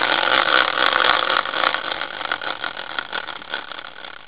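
Hand-spun team wheel on a caster mount, whirring with a rapid run of ticks. It starts loud and slows and fades steadily as the wheel coasts down.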